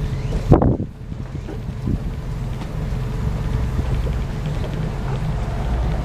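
River houseboat's engine running with a steady low drone, heard from inside the cabin, with a single thump about half a second in.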